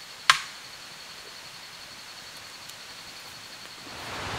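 Outdoor forest ambience: a steady hiss under a thin, evenly pulsing high trill, broken by one sharp, loud snap about a third of a second in. Near the end a rushing noise like running water swells up and takes over.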